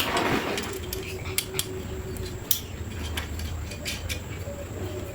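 Scattered light clicks and clinks of small hard objects being handled, over a faint low hum.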